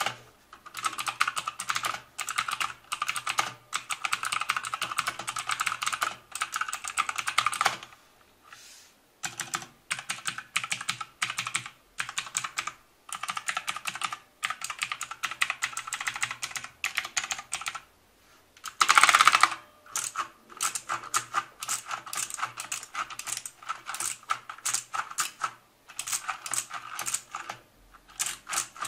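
Clicky Blue-switch mechanical keyboard (Motospeed CK104) being typed on fast, in runs of sharp key clicks broken by short pauses. A louder, denser flurry of keystrokes comes about two thirds of the way in.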